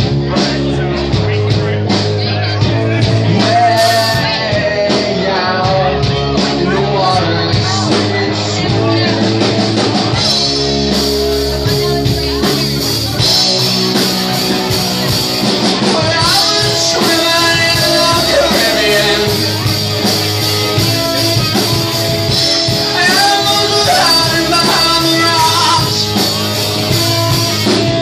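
Live rock band playing loud and without a break: electric guitars over bass and drums, with a singer's voice on top.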